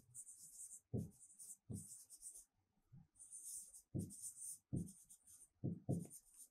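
A stylus writing out words on a pen tablet: faint, short scratching strokes, broken up by light taps of the pen tip on the surface.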